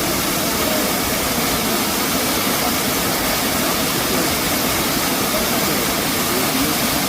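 Waterfall: falling water making a loud, steady rushing noise.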